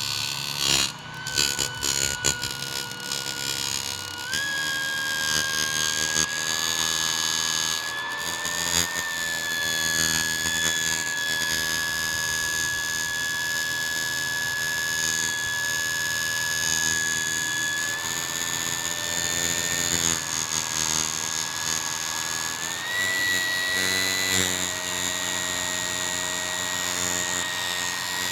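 Electric fan running with a steady high whine over a low hum, the 'snoring' noise of a noisy fan motor; the whine's pitch steps up several times. A few sharp clicks come about a second in.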